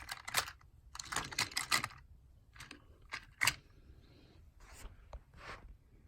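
Irregular plastic clicks and rattles of Plarail toy train cars being handled and set up.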